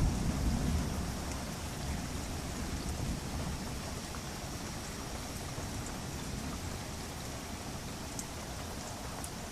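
Steady rain falling during a thunderstorm, with the tail of a low thunder rumble dying away in the first couple of seconds.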